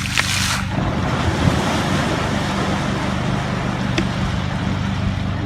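A boat's motor running steadily under wind and water noise, with a short burst of hiss just after the start.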